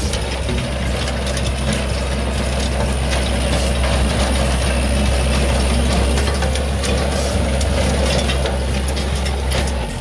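Kubota L5018 diesel tractor running steadily under work, a strong deep engine drone with a dense mechanical clatter over it, which cuts off suddenly near the end.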